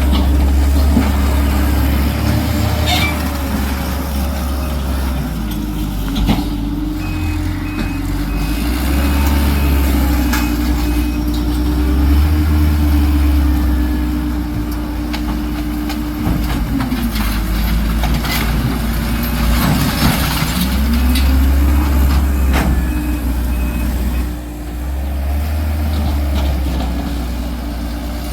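Heavy diesel work vehicle running with a deep steady rumble, its engine pitch dipping and coming back up twice in the second half. A backup alarm beeps in two stretches, and a few sharp knocks sound.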